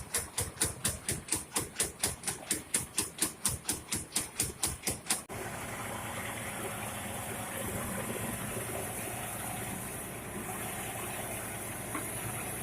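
Old rice-milling machine running: a regular beat of about four knocks a second, then a sudden switch about five seconds in to a steady, even mechanical running noise.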